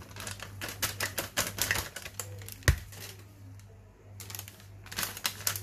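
Ground meat frying in a pan, crackling and popping irregularly and fast, with one sharp, loud pop or knock about halfway through, over a low steady hum.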